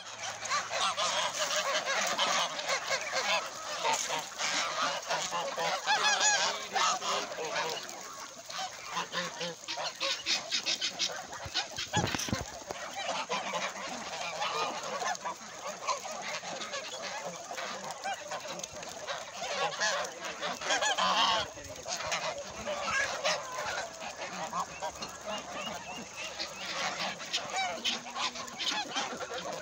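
A mixed farm flock of geese, ducks and chickens calling over one another without a break, with the geese's honking loudest. The din is strongest over the first several seconds and swells again briefly about two-thirds of the way through, and a single dull thump is heard near the middle.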